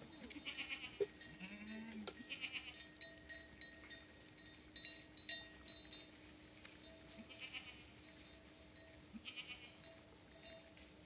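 Faint animal calls, a few short cries spread a few seconds apart, with scattered sharp clicks and knocks and a faint steady hum underneath.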